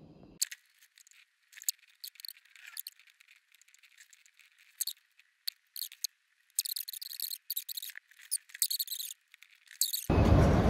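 Typing on a laptop keyboard: scattered key clicks, then quicker runs of clicks, sounding thin with no low end. About ten seconds in it is cut off abruptly by a loud, steady rush of wind noise.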